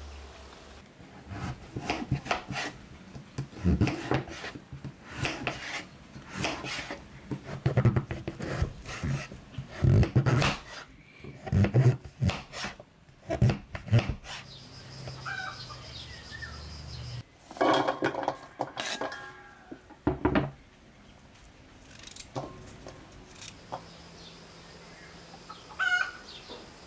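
A knife chopping peeled zucchini on a cutting board in a run of sharp knocks, with a hen clucking at times.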